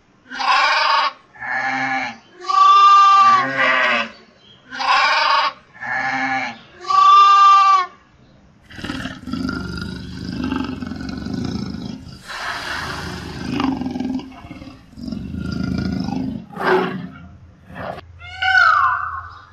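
Sheep bleating, about seven short bleats in turn; then, from about eight seconds in, a leopard's repeated rough, rasping calls; near the end, an Indian peafowl's loud call with a falling pitch.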